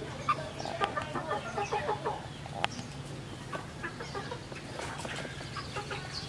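Chickens clucking in short, repeated calls, with scattered light clicks.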